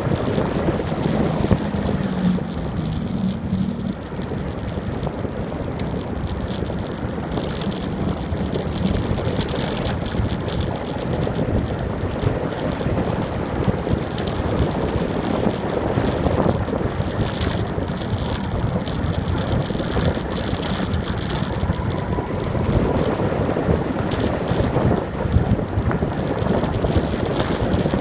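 Wind buffeting the microphone and tyres rumbling on asphalt as a bicycle coasts fast downhill, the bike rattling over the road surface.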